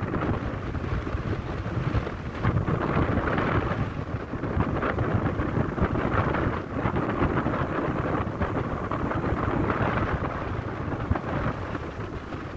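Wind buffeting the phone's microphone: a rough, uneven rumbling noise that swells and dips every few seconds.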